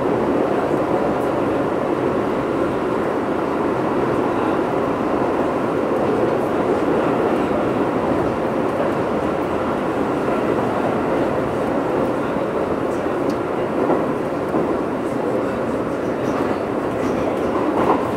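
Keio 8000 series electric train heard from inside the car above its Hitachi GTO-VVVF inverter, running at speed: a steady rumble of wheels and traction gear with no clear rise or fall in pitch. A few small knocks come near the end.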